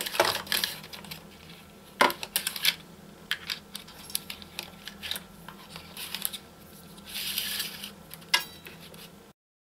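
Small clicks, taps and rustling of hands handling wiring and plastic parts inside a miter saw's blade housing as a laser module is unclipped and its wire pulled out. The sound cuts to dead silence near the end.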